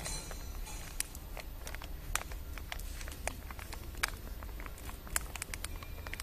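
Spray-dried honey powder being shaken from a clear plastic bag into a stainless steel pot: irregular small clicks and crackles of the bag and falling powder, over a low steady hum.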